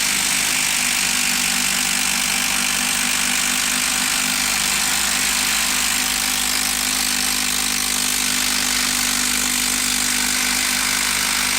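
Milwaukee 12-volt brushed impact driver hammering continuously as it drives a long TimberLok structural screw into wood, running at a steady pitch under load with no let-up.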